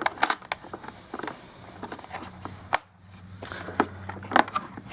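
Scattered hard-plastic clicks and knocks as parts of a Bissell ReadyClean carpet shampooer are handled and fitted back on. There is one sharp click a little past the middle and another near the end.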